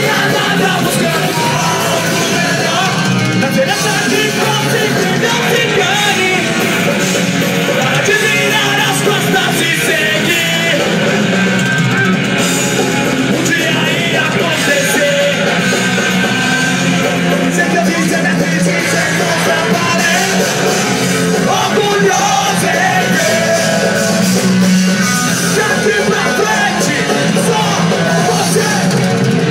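Hardcore punk band playing live and loud: electric guitars, drums and vocals, heard from within the crowd, with little deep bass.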